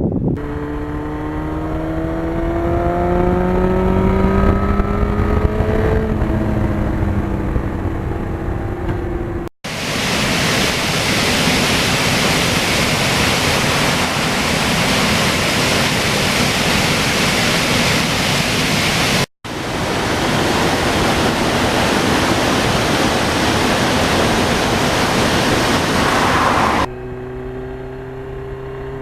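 1991 Yamaha FZR1000's inline-four engine pulling up through the revs on the road, its pitch climbing steadily. After an abrupt cut, heavy wind rush at speed takes over, with the engine faint beneath it, and after another cut it continues. Near the end the wind drops and the engine is heard climbing in pitch again.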